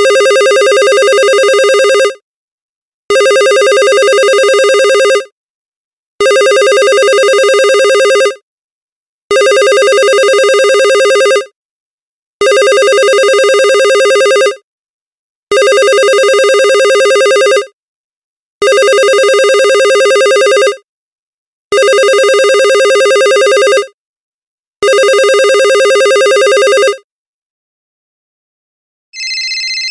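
Telephone ringing in a steady pattern: nine rings of about two seconds each with a second's pause between. Near the end a different, quieter and higher-pitched phone ring begins.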